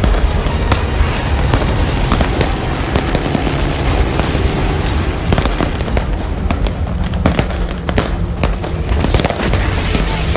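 Fireworks and pyrotechnics going off at night: a dense run of crackles, pops and sharp bangs.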